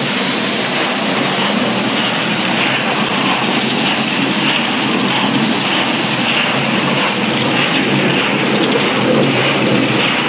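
Puffed corn snack production line running, its single-roller flavoring drum turning as puffed snacks pour from its mouth: a steady mechanical din with a constant high whine over it.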